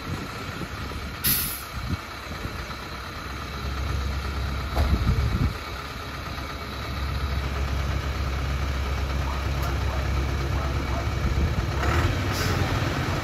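Hoa Mai (DFAC) dump truck's diesel engine running under load as the truck crawls through deep mud and spoil, its low rumble growing stronger about four seconds in. Short hisses of air about a second in and again near the end.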